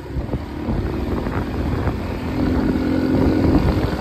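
Small motor vehicle's engine running steadily while riding over a dirt road, with wind buffeting the microphone.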